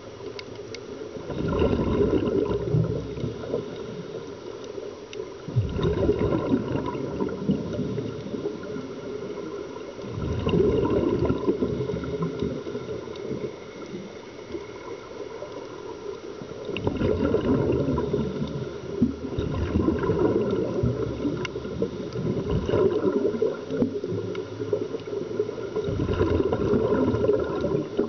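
Scuba regulator exhalations heard underwater: bursts of bubbling, each two to three seconds long, coming about every four seconds, with a quieter hiss between.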